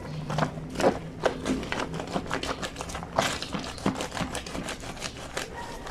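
Wet fleece sheets scrubbed by hand on the ridged washboard of a granite laundry sink: a quick, irregular run of short slaps and rubbing strokes, several a second.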